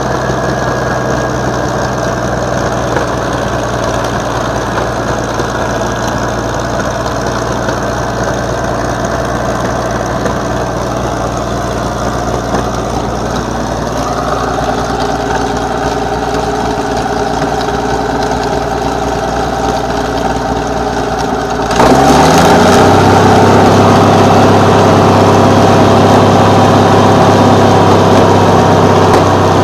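Continental AV-1790 air-cooled V12 petrol engine from an M47 Patton tank, running out of the tank through short open exhaust stacks. It idles steadily, then about 22 seconds in revs up sharply and holds at a higher, much louder speed.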